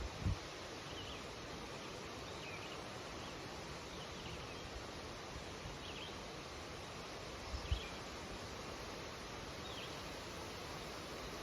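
Wind rustling through birch leaves as a steady hiss, with a small bird's short, faint, high chirps every second or two. Two brief low thumps, one just after the start and one about two-thirds through.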